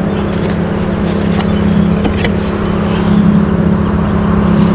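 Fishing reel's drag buzzing steadily as a hooked fish pulls line off it, getting a little louder about three seconds in.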